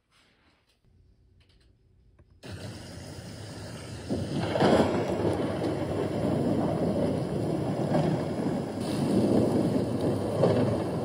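Rain hiss with rolling thunder, a storm sound effect, starting suddenly about two and a half seconds in, swelling louder about four seconds in and rising and falling in slow rumbles.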